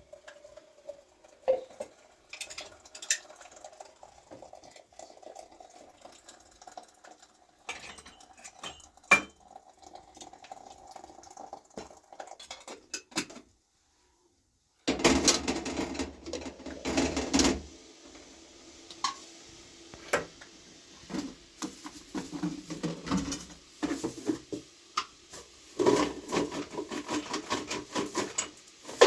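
Dishes and pots being handled, with many sharp clinks and knocks. There is a brief break about halfway through, after which the clattering is louder and busier.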